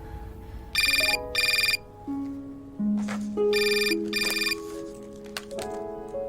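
Telephone ringing in a double-ring pattern, each ring a short trill: one pair of rings about a second in, another pair about three seconds later, and a third ring beginning at the end. Background music plays under it.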